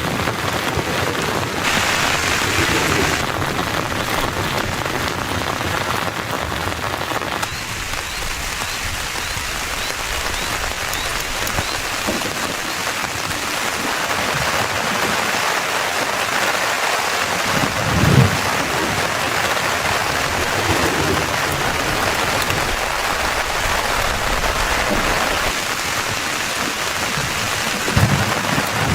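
Heavy rain falling steadily on a tent, a dense even hiss of drops. Two short low thuds come through it, one about two-thirds of the way in and one near the end.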